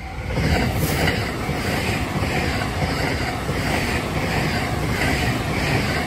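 JR West Thunderbird limited express, an electric train, passing at speed close by: a steady rumble and rattle of wheels on the rails that swells in within the first second.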